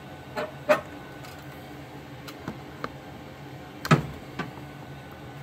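A few short, sharp clicks and knocks over a steady low workshop hum. The loudest knock, about four seconds in, comes as a hand grabs and moves the camera.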